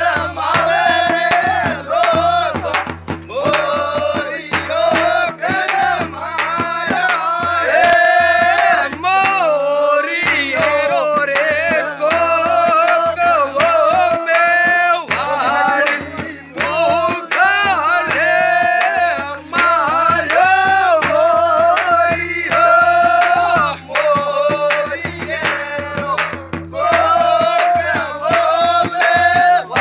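Rajasthani fagan, a Holi folk song: a male voice sings in long wavering phrases over a drum beat and steady low bass notes.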